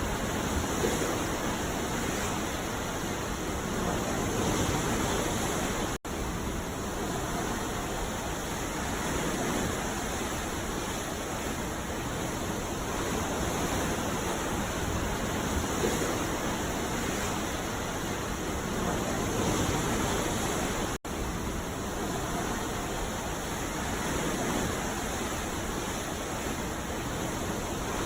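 Ocean surf washing onto a beach: a steady rush of breaking waves that swells and eases every few seconds. The sound cuts out for an instant twice, about six seconds in and again about twenty-one seconds in.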